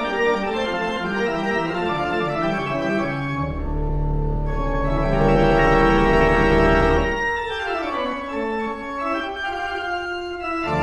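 Background music of sustained, organ-like chords. A deep bass layer comes in about three and a half seconds in and drops out around seven seconds, followed by a falling slide in pitch.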